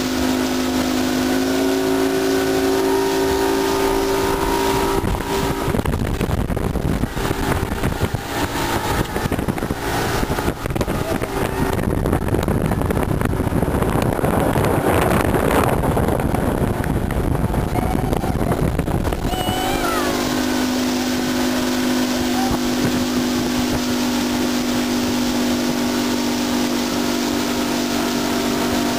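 Motorboat engine running with a steady hum. For a long stretch in the middle a loud rushing noise drowns it out, and then the steady hum returns.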